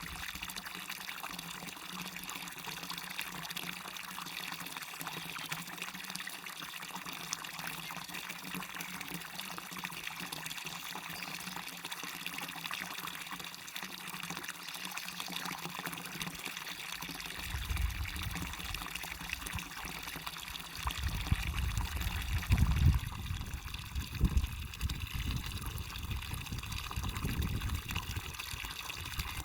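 Waterfall and stream running with a steady rush of water. About two-thirds of the way in, an uneven low rumble joins it, loudest in brief surges near the end.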